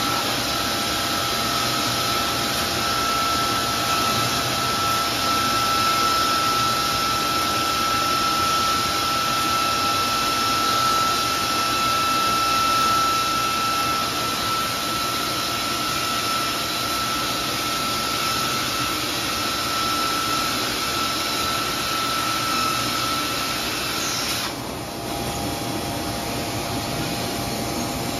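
Biesse Rover 322 CNC machining center running: a steady high whine over a constant noise of machinery. The whine cuts off a few seconds before the end while the machine keeps running.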